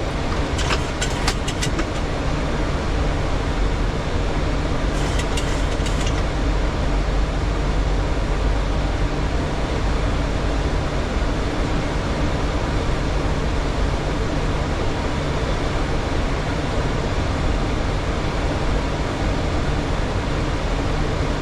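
Steady flight-deck noise of a Boeing 737 in flight: a dense, even rush of airflow and engine noise with a strong low rumble. Short clusters of clicks come about a second in and again around five seconds in.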